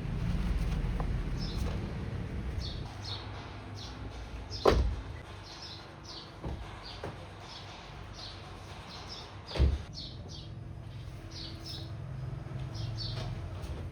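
Small birds chirping in short repeated calls over a low rumble, broken by two sharp knocks about five seconds apart.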